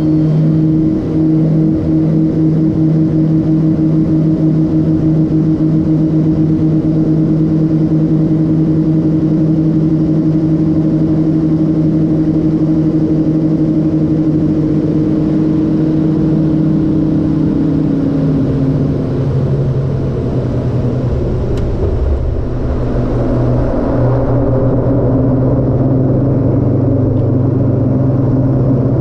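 LET L-410 turboprop engines and propellers droning steadily from the cockpit on final approach. About 18 seconds in, the drone drops in pitch as power comes back, then a low rumble of the wheels on the snowy runway sets in after touchdown, with a wider rushing noise rising a few seconds later.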